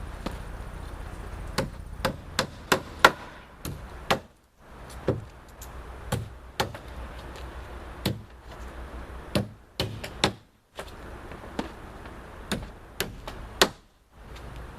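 Hammer driving roofing nails through tarpaper felt into a roof deck: a long series of sharp strikes at irregular spacing, often in quick groups of two or three, as the felt is nailed off in rows.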